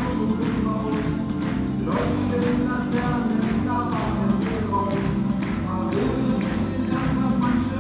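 Lively carnival music with a steady beat, and hands clapping along in time, about two claps a second.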